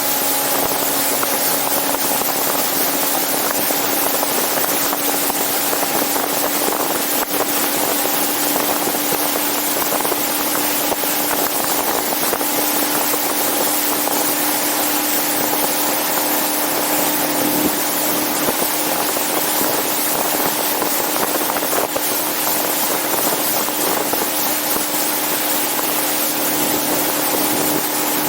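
A motorboat's engine runs steadily at speed with a constant hum, under a loud rush of wind and water.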